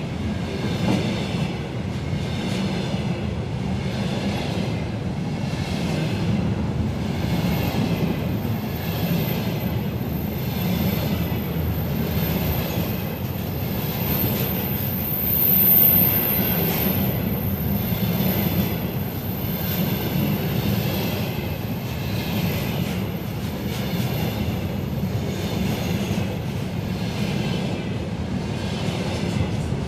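Freight train wagons rolling past behind a 2ES4K Donchak electric locomotive, their wheels clacking over the rail joints in a steady rhythm. A thin high wheel squeal rises through the middle and is loudest about halfway.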